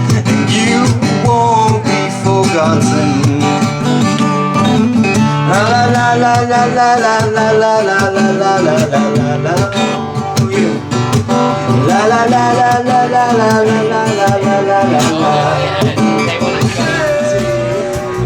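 Guitar-backed song playing between sung lines, with a held lead melody that slides up and down.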